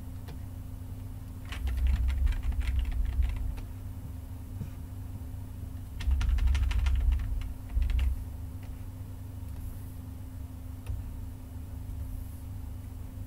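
Two spells of rapid clicking from a computer keyboard and mouse, about two seconds in and again about six seconds in, with a brief click near eight seconds. A steady low hum runs underneath.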